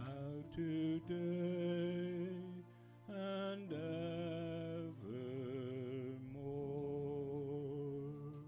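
Singers holding long notes with vibrato over a steady keyboard accompaniment, closing out a sung benediction; the music fades near the end.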